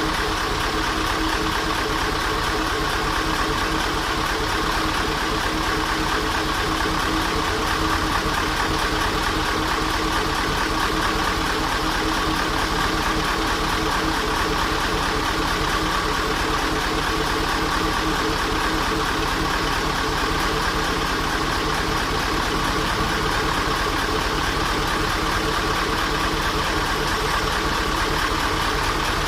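Mitsubishi Fuso twin-turbo V8 diesel engine idling steadily.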